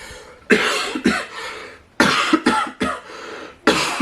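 A person coughing hard and repeatedly, in three fits of several coughs each.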